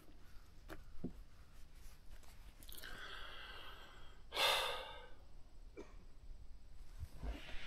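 A man breathing close to the microphone. A breath comes just before three seconds in, then a louder exhaling sigh about four and a half seconds in, with a few faint clicks around them.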